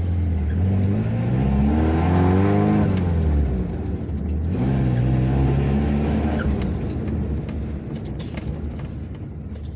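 Mazda MR sedan's engine accelerating: its pitch climbs for about three seconds, drops at a gear change, climbs again, then settles into steadier running.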